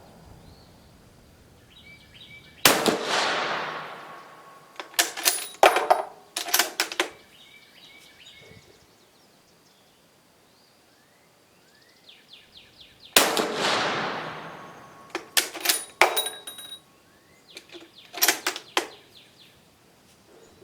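Two shots from a Dutch Beaumont bolt-action rifle, about ten seconds apart, each trailing off in a long echo. After each shot comes a run of sharp metallic clicks and clacks as the bolt is worked to extract the case and chamber the next round.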